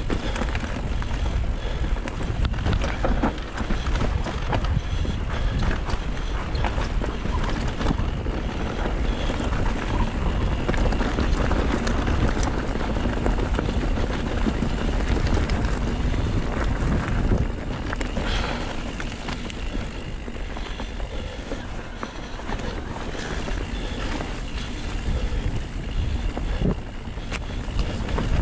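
Mountain bike riding fast along dirt forest singletrack: tyres rolling over earth and leaf litter, with clicks and rattles from the bike over bumps and wind buffeting the microphone.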